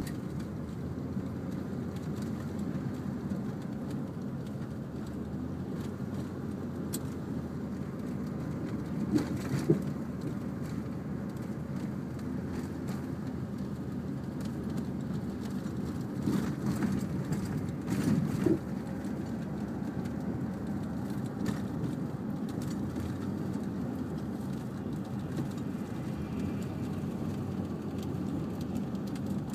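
Steady low rumble of a running vehicle, with a few brief louder knocks about nine seconds in and again around sixteen to eighteen seconds in.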